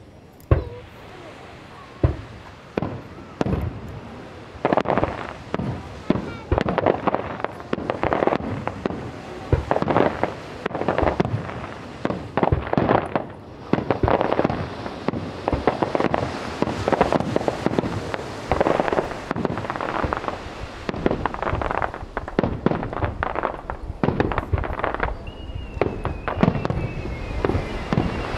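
Aerial fireworks shells bursting. Two separate sharp booms come in the first two seconds, then a dense, continuous barrage of booms and crackle.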